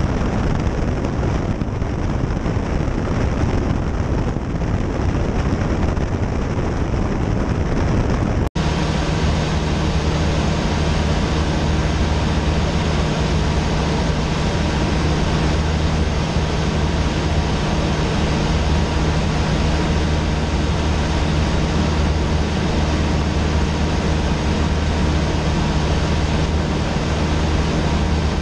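Cessna 152's four-cylinder Lycoming engine and propeller droning steadily in flight, heard inside the cockpit with rushing air noise. There is a brief cut about eight seconds in, after which the engine's steady hum stands out more clearly.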